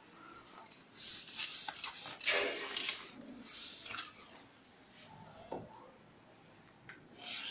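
Chalkboard duster rubbing across a blackboard in several quick wiping strokes, erasing chalk writing. There is another short rub near the end.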